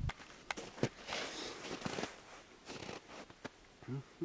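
Faint handling noise on the camcorder microphone: soft rustling and scattered irregular clicks, with a short low sound near the end.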